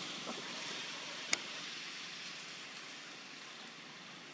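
Steady, even outdoor hiss of background ambience, fading slightly, with one short sharp click a little over a second in.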